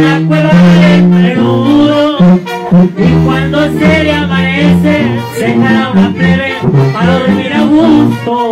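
Live band music led by brass instruments, with a man singing into a handheld microphone over it.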